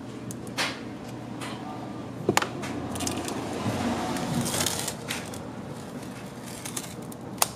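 Blue protective plastic film being peeled off a new stainless-steel door sill plate and crumpled in the hand: a crinkling rustle that swells around the middle, with a sharp click about two seconds in and another near the end.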